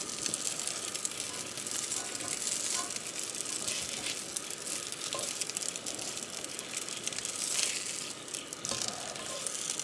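Schnitzels frying in a skillet, a steady crackling sizzle.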